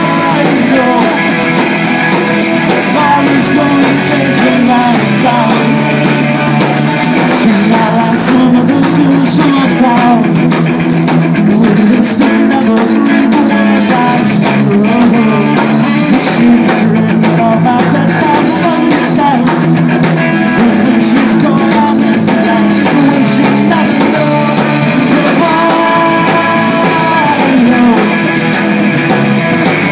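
Loud live rock band playing: electric guitars, bass and drum kit, with singing.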